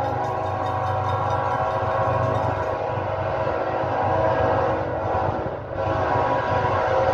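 A CSX diesel freight locomotive's air horn sounding a long chord for the grade crossing, breaking off briefly about five and a half seconds in and then sounding again, with a low rumble underneath.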